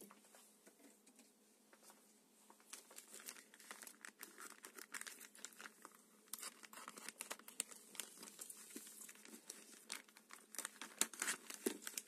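Plastic poly mailer bag crinkling and crackling as it is cut and torn open with scissors, the crackles growing denser near the end.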